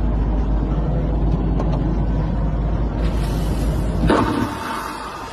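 A steady, loud, low rumble like a running vehicle. About four seconds in, a rushing whoosh starts and the deep rumble drops away.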